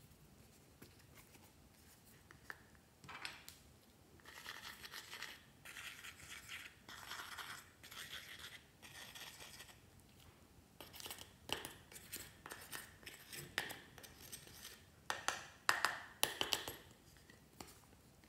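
A small cardboard box handled by hand: a few seconds of scratchy rubbing and scraping, then a run of sharp clicks and taps, the loudest of them near the end.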